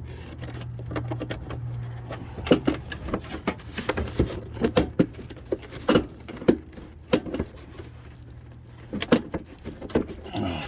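Scattered metallic clinks and knocks of hand tools and engine-bay parts being handled while working loose an air filter housing, over a low steady hum that fades out near the end.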